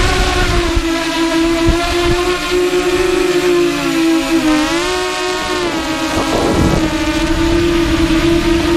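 FPV racing quadcopter's motors and propellers whining at a steady high pitch, heard from on board the drone. About halfway through the pitch dips and climbs back as the throttle eases off and opens up again. Wind rumbles on the microphone underneath.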